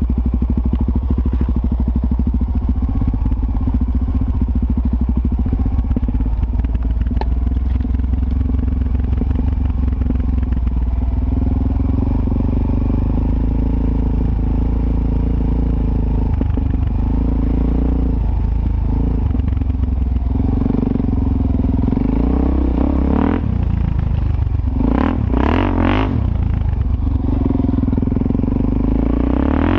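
Suzuki DR-Z400S's single-cylinder four-stroke engine running under way along a dirt trail, heard from a helmet-mounted camera. Over the last several seconds the revs rise and fall repeatedly as the throttle is worked.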